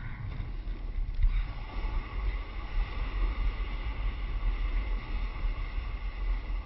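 Wind buffeting the action camera's microphone in a steady low rumble, over the hiss of snow-sport edges sliding across hard, wind-packed snow.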